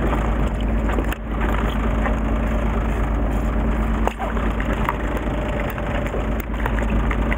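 Fishing boat's engine running steadily under a heavy low rumble, with frequent sharp clicks and crackles throughout.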